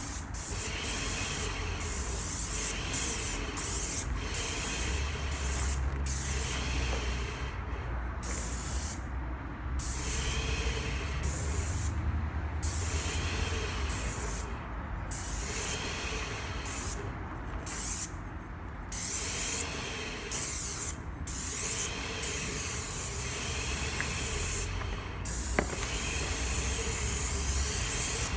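Wagner airless paint sprayer spraying fence paint for a finishing coat: a hiss of atomised paint that starts and stops again and again as the gun trigger is pulled and released, with short breaks between passes. A steady low hum runs underneath.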